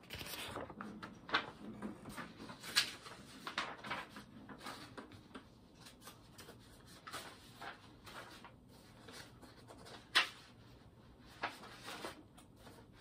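Faint handling noises: light scattered taps, clicks and rustles, with a few sharper knocks, the loudest about ten seconds in.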